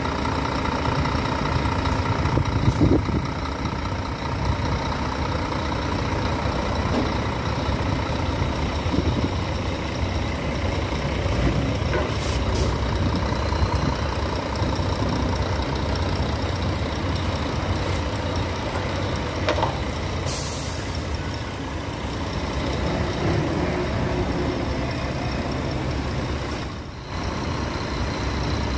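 Scania K360IB bus chassis's diesel engine running steadily as the bare chassis is driven down off a trailer. About two-thirds of the way through comes a short hiss of air released from the air brakes.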